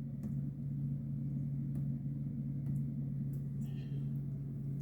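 A steady low hum with a few faint clicks and taps.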